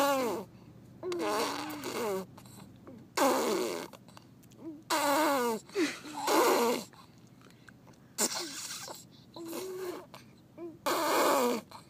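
A baby blowing raspberries: wet, buzzing lip trills with his voice in them, about eight bursts of half a second to a second each.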